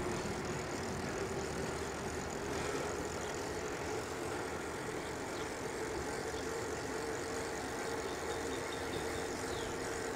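Electric bike motor whining steadily while riding, its pitch rising a little in the first couple of seconds and then holding, over a steady rushing of wind and tyre noise.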